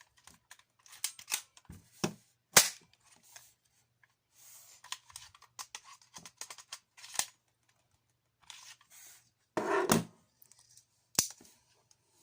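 An all-metal M20 airsoft pistol being handled, its parts giving a run of irregular clicks and clacks. The sharpest snap comes about two and a half seconds in, and a longer scraping rasp comes near ten seconds.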